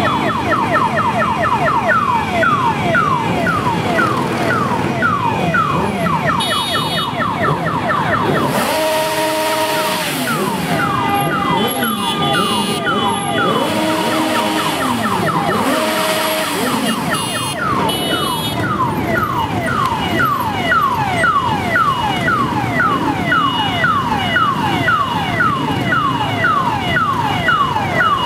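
A slow motorcycle parade going by: a fast, repeating electronic siren wail, falling in pitch about three times a second, runs almost throughout, with horns sounding several times in the middle and motorcycle engines running and revving underneath.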